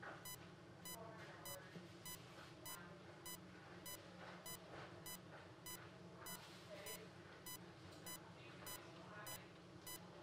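Bedside patient monitor beeping with each heartbeat, a short high beep about every 0.6 seconds (a pulse of roughly 100 a minute), faint over a low room hum and soft rustling of the catheter being handled.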